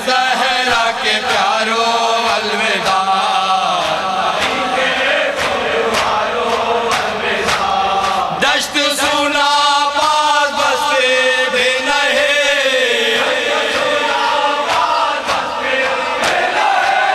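A group of men chanting a noha, an Urdu mourning lament, in unison behind a lead singer on a microphone, with the slaps of hands beating on chests (matam) keeping time.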